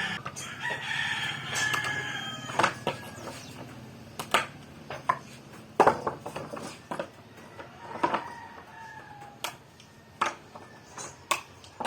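A long, drawn-out bird call in the first few seconds and a shorter one about eight seconds in, over scattered sharp knocks and clicks.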